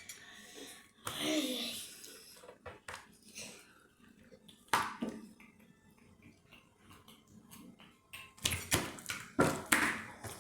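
Slime being squeezed and worked by hand, giving scattered wet clicks and pops, with a quick run of them near the end.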